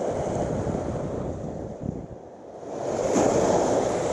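Small surf waves washing up on a sandy beach, with wind buffeting the microphone. The wash swells louder about three seconds in as a wave runs up the sand.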